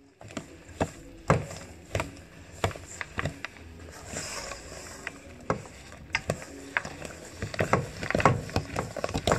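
A spoon stirring rock bun dough in a stainless steel mixing bowl, knocking and scraping against the metal in irregular sharp knocks.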